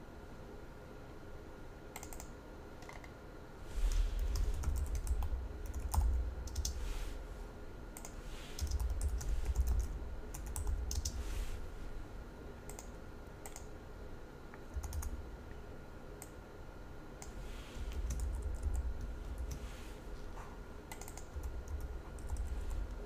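Computer keyboard typing in irregular bursts of keystrokes, with a low rumble during the louder stretches.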